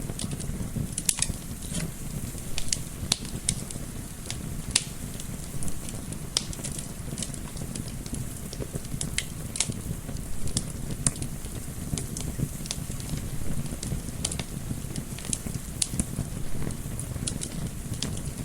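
Wood fire crackling, with frequent sharp irregular pops and snaps over a steady low rumble of soft wind.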